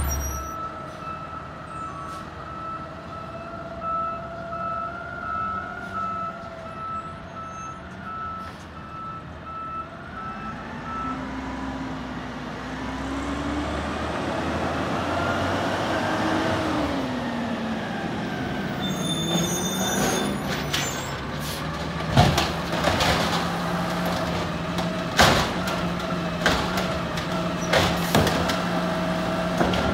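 Automated side-loader garbage truck working a street: a backup alarm beeping steadily, the diesel engine revving up and settling, then the hydraulic arm whining with several sharp clanks as it grabs and lifts a cart.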